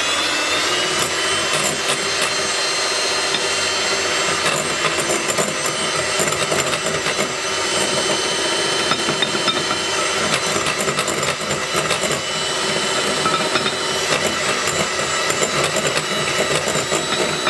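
Electric hand mixer running at high speed, its beaters whisking egg yolks and powdered sugar in a glass bowl, with a steady motor whine.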